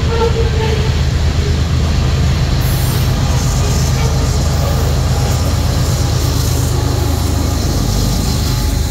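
A CSX coal train rolling past close by: steel-wheeled hopper cars rumbling and clattering on the rails, with the diesel engines of two mid-train distributed-power locomotives running as they come alongside near the end.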